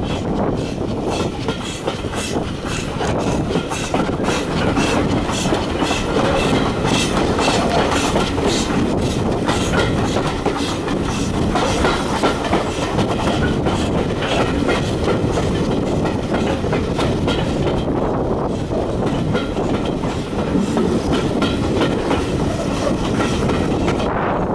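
Steam-hauled train running along, heard from a carriage window: a steady rumble and rush of the moving coaches with repeated clicks of the wheels over the rails.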